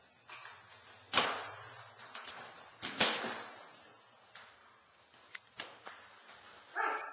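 Two loud thuds about two seconds apart, each dying away quickly, followed by a few lighter knocks and a short pitched cry near the end.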